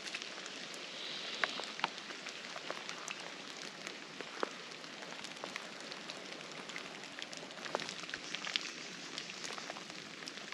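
Steady rain falling, an even hiss dotted with scattered sharp ticks of drops hitting.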